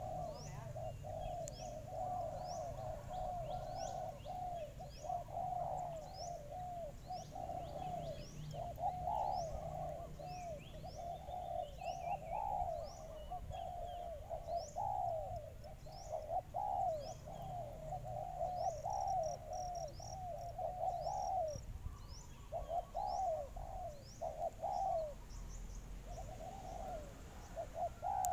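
Spotted doves cooing in a rapid, nearly unbroken run of low phrases, with brief pauses in the last few seconds. Small birds give short, high chirps throughout.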